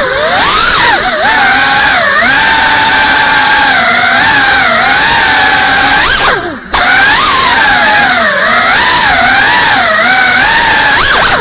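A GEPRC CineLog 35 cinewhoop drone's brushless motors and ducted propellers whine loudly, the pitch rising and falling with throttle as it flies. About six and a half seconds in, the whine glides down and briefly drops away, then spins back up.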